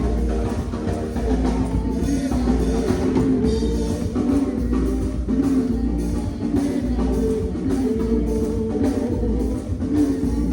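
Band music: a drum kit keeping a steady beat under guitar and other pitched instruments.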